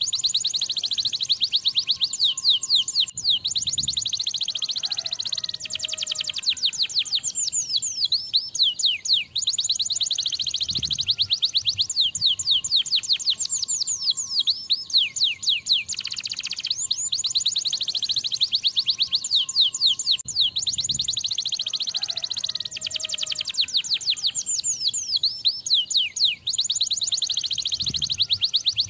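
Domestic canary in full song: long, rapid trills of fast downward-sweeping notes, changing to a new phrase every few seconds with only brief pauses between.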